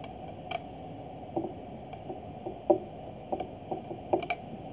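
A small screwdriver working the casing screws of a MikroTik RouterBOARD, giving short, irregular light clicks and ticks of metal on metal.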